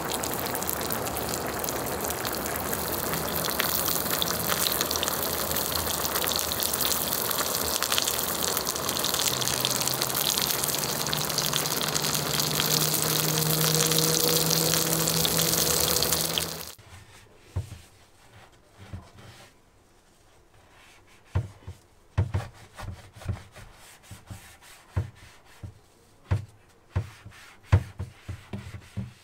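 A steady crackling hiss of food sizzling and broth bubbling on an electric hotpot-and-grill cooker, cutting off suddenly after about 17 seconds. Then the cooker's nonstick pan is scrubbed with a sponge in a metal sink, with scattered knocks and scrapes.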